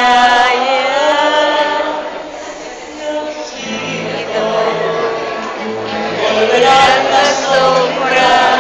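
Live music: a voice singing a slow melody with an ensemble of violins, with lower accompanying notes coming in partway through.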